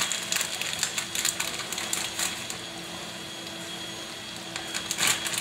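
Plastic food pouch crinkling as it is handled and emptied over a saucepan, with sharp rustles in the first couple of seconds and again near the end.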